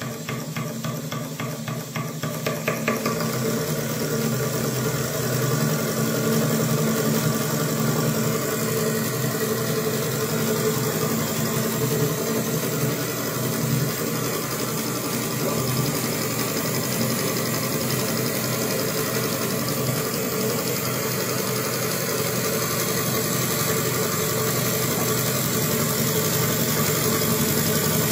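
Two-cylinder double-acting model marine steam engine running. Its separate beats quicken over the first few seconds as it speeds up, then it runs steadily at a fast, even rhythm.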